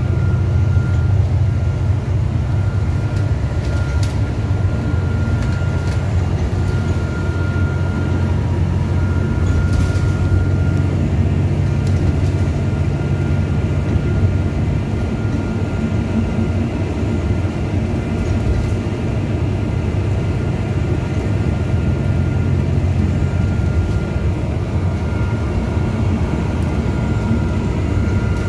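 Alexander Dennis Enviro 400 diesel double-decker bus running along the road, heard from inside the upper deck: a steady low engine drone with road and body noise and a faint high whine. The low drone eases a little about halfway through.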